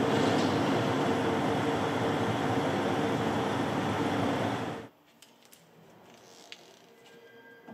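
John Deere S-series combine running with the grain table mounted: a steady mechanical noise with a low, even hum. It cuts off abruptly about five seconds in, leaving a much quieter stretch with a few faint metallic clicks and taps from the bracket plate being handled.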